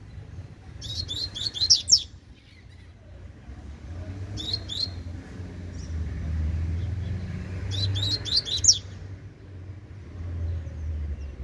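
Young double-collared seedeater (coleiro) singing short phrases of quick, high repeated notes in the tui-tui song type: a run of about six notes a second in, two notes around four and a half seconds, and another run of about six notes near eight seconds. A low rumble sits underneath.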